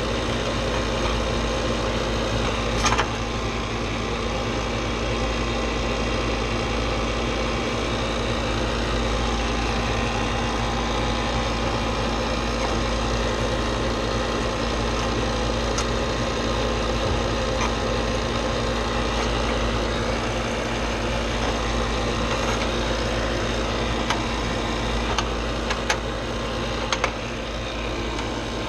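HVAC vacuum pump running steadily, evacuating an air-conditioning line set and evaporator coil down toward 500 microns. A few light clicks about three seconds in and near the end.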